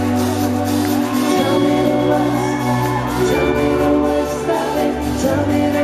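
Live band playing a slow pop song: sustained chords over a moving bass line and a steady beat, with a male voice singing phrases over it.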